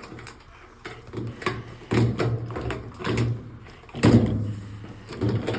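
Knocks and rattles of a washing machine water inlet valve and its fittings being handled and pushed together, with the loudest knock about four seconds in.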